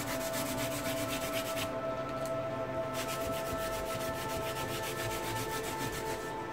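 A crumpled paper towel rubbing briskly over a thin plastic stencil, in fast repeated back-and-forth strokes with a short pause a little under two seconds in. It is wiping excess black ink off the stencil so the ink stays only in its guide marks.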